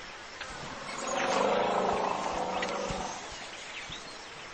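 An elephant's call: one long, low-pitched call that starts about a second in and lasts about two seconds.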